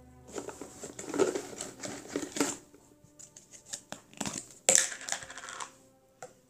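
Crunching and crackling of food being chewed close to the microphone, in irregular bursts with one loud crunch about five seconds in.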